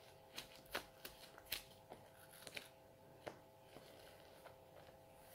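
Faint, irregular light clicks and paper rustles of Bible pages being leafed through, over a faint steady hum.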